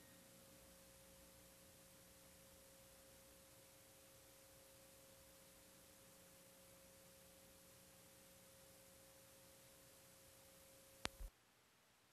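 Near silence: faint tape hiss with a faint steady hum tone. About eleven seconds in there are two quick clicks, and then the tone stops and the hiss drops lower.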